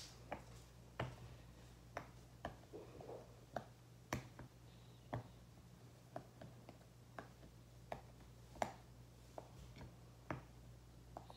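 Silicone pop-it fidget toy having its bubbles pressed through one at a time. Each gives a short quiet pop, about one or two a second at an uneven pace.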